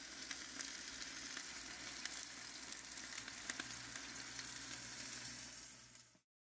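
Deer fat rendering down in a steaming stainless stockpot, sizzling and bubbling with many fine crackles and pops over a steady low hum. The sound cuts off suddenly near the end.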